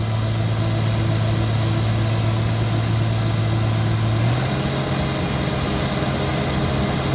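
Combine harvester running steadily while cutting soybeans: a constant engine hum over an even hiss of machinery. About four seconds in the hum steps up slightly in pitch.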